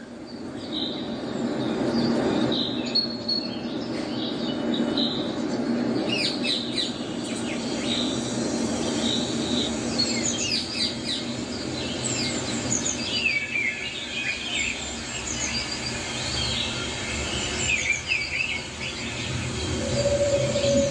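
Many small birds chirping and calling, in quick rising and falling chirps, over a steady low rumbling background. A steady hum sets in near the end.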